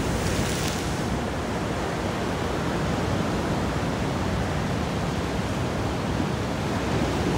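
Ocean surf: waves washing in as a steady rushing noise.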